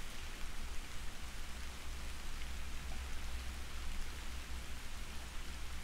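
Soft, steady rain falling, an even hiss with a low rumble underneath.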